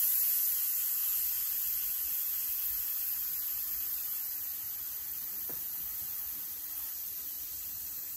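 Air hissing steadily out of a bicycle tyre valve, slowly fading as the tyre goes down; the tyre is being let down to re-seat it after it went on crooked.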